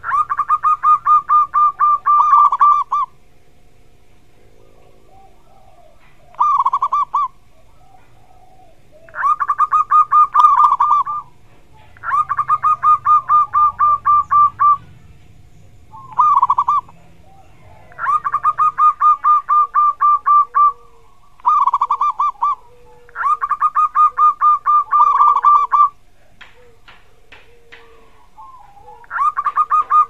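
Zebra dove (perkutut) calling: bursts of rapid, high, evenly pulsed cooing notes, each phrase lasting from half a second to about three seconds, repeated about eight times with short pauses between.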